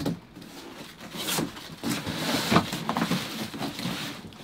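Cardboard mattress box being opened and stood on end: irregular scraping and rustling of cardboard on a wooden tabletop, with several sharper knocks as the box is moved.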